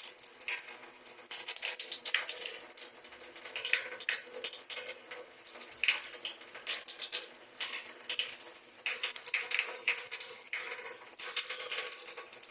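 Continuous rattling and clicking of small hard objects being handled, irregular throughout.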